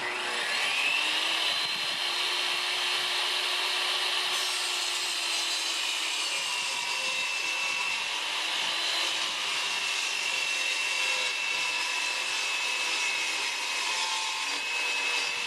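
Electric power saw spinning up and running through a long cut, with a steady whine that sags slightly in pitch as the blade takes the load.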